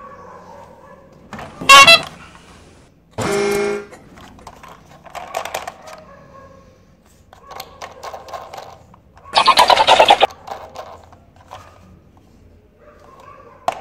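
Light clicks and knocks of a plastic toy train being handled, broken by a few short, loud sound effects: a brief burst about two seconds in, a steady horn-like honk lasting under a second about three seconds in, and a loud pulsing burst around ten seconds in.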